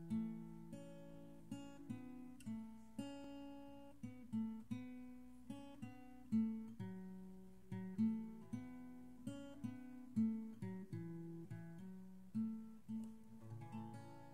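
Acoustic guitar playing an instrumental intro: a steady run of picked notes and chords, each ringing out and fading before the next.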